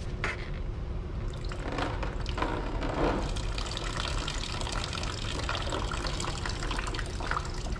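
Engine coolant draining in a steady stream from the disconnected lower radiator hose of a 2006 Toyota Avalon, splashing into a drain catch can.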